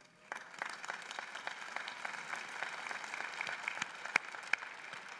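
Crowd applauding, starting about a third of a second in, with a few louder single claps standing out later on.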